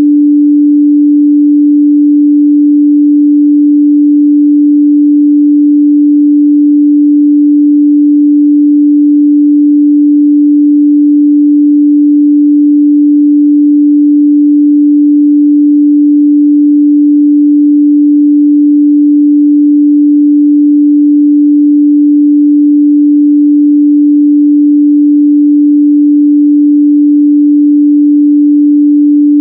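A steady, loud 293 Hz sine-wave test tone, a single pure pitch held without change, used to check how speakers and headphones reproduce the midrange.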